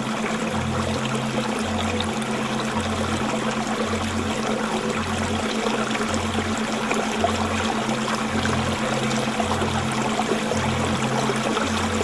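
Aquarium water trickling and splashing steadily, over a low hum that switches between two pitches about once a second.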